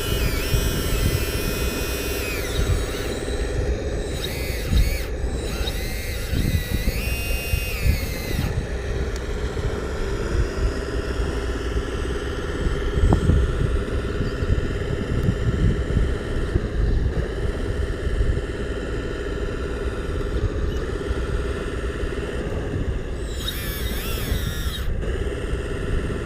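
Small electric motors of a homemade RC backhoe loader whining as it works, the pitch rising, falling and shifting as the motors change speed, over a steady low rumble.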